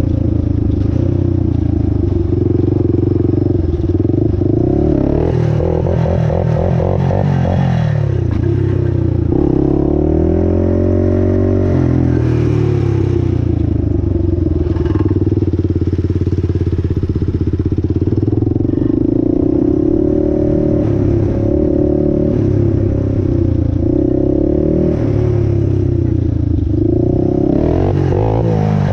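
Honda 400EX ATV's single-cylinder four-stroke engine revving hard while ridden at speed. Its pitch repeatedly climbs and then drops back as it is run up through the revs, with a sharp climb near the end.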